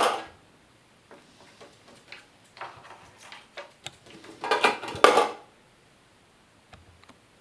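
Light, scattered clicks and clinks of small hard toy treasure pieces handled by a Senegal parrot at a toy treasure chest, rising to a louder clatter about four and a half seconds in.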